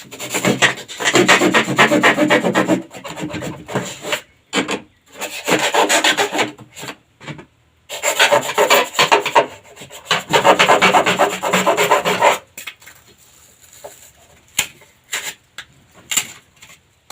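Rasping strokes of a hand tool worked back and forth against a board, in three long bursts, followed by a few light knocks near the end.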